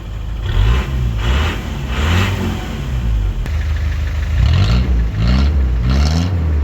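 Vehicle engine revving up and dropping back about six times in two groups, the pitch climbing with each rev.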